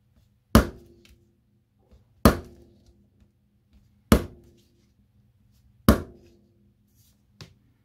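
Red-handled compound-action pliers squeezed on a thin aluminium litho plate, giving four sharp metallic snaps about two seconds apart, each with a brief ring, and a fainter click near the end. Each squeeze presses a rivet dimple into the plate as the tool works along the panel.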